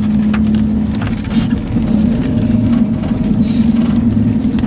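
Vehicle engine running, heard from inside the van's cabin as a steady hum over a low rumble, with a few light clicks.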